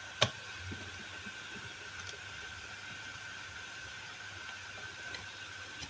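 One sharp click about a quarter second in, then a few faint taps, over a faint steady high-pitched whine and low background noise.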